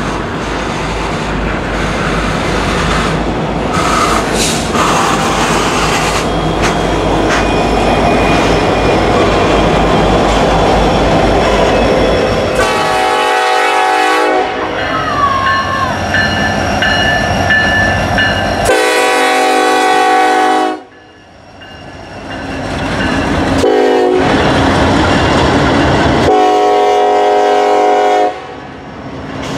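Freight cars rolling past with a steady rumble and wheel clatter. Then the lead locomotive of an approaching Norfolk Southern intermodal train, an SD70ACe, blows its air horn four times, long, long, short, long: the grade-crossing signal.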